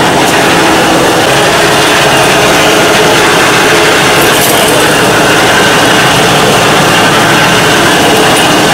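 Rear differential of a 1995 Dodge Ram pickup running in gear with the rear wheels spinning off the ground, a loud, steady mechanical growl over the engine. The noise grows louder with speed and is most likely from worn pinion bearings.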